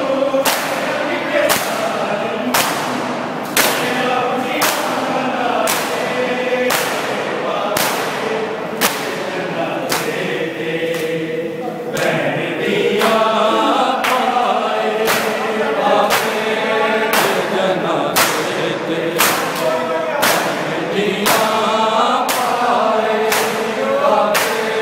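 Shia matam: a crowd of men chanting a mourning lament while striking their chests with open hands in time. Each strike is a sharp slap, about once a second, over the sung chant.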